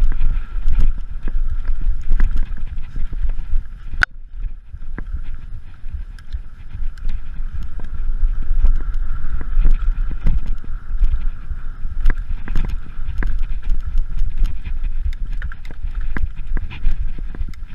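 Mountain bike ridden over slickrock and rocky trail: the frame and parts knock and rattle irregularly over the bumps, with one sharp knock about four seconds in. Wind rumbles on the camera microphone, and a steady high hum runs underneath.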